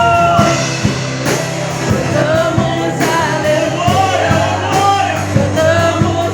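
Live worship band playing: a singer's voice carrying the melody over drum hits and held bass notes, with the bass moving to a new note about four seconds in.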